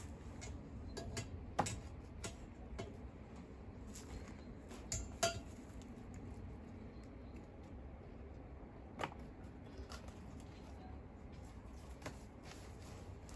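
Scattered light knocks and clinks, with sharper ones about a second and a half in, about five seconds in and about nine seconds in, over a low steady background noise.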